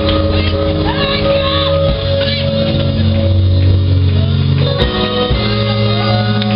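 Live music of held chords over a bass line, the chord changing about two seconds in and again about five seconds in, with voices singing and calling out over it.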